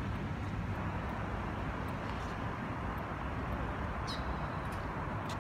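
Steady hum of distant city traffic. A faint short high chirp comes about four seconds in.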